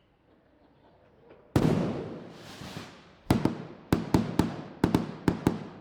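Fireworks: after a faint rising hiss, one loud bang about a second and a half in, with a long rumbling fade. From about halfway on, a quick run of about nine sharp cracking bangs follows, each trailing off.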